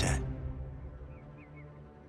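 Soundtrack music: low sustained tones that slowly fade, with a few faint short rising chirps about a second in.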